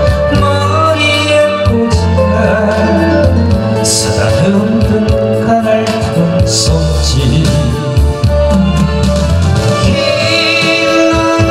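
A man singing a Korean pop song into a microphone over instrumental accompaniment, his held notes wavering with vibrato.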